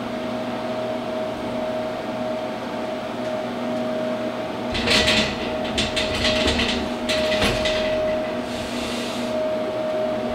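GQF cabinet incubator running with a steady electrical hum. From about halfway through, plastic egg trays and metal rack rails rattle and scrape in several short clusters as a tray of eggs is slid into the turner racks.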